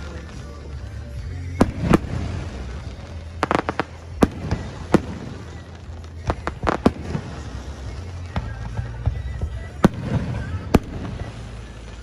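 Aerial fireworks bursting: a string of sharp bangs, with quick crackling clusters about three and a half and six and a half seconds in, over music played with the show.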